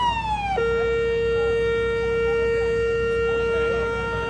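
Small electronic siren sweeping down in a falling wail, then switching abruptly about half a second in to a steady, buzzy tone that it holds on.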